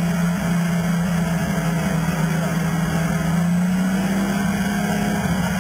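Four-wheel-drive engine running steadily at a fast idle during a strap recovery, its pitch rising slightly about halfway through.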